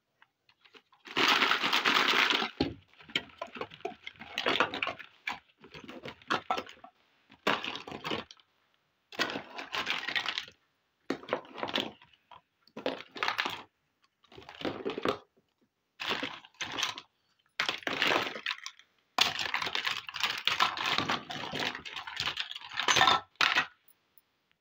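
Small plastic toy kitchenware clattering and rattling in a plastic basket as it is handled, pieces knocking and clicking against one another. It comes in a dozen or so bursts with silent gaps between them, the longest runs about a second in and near the end.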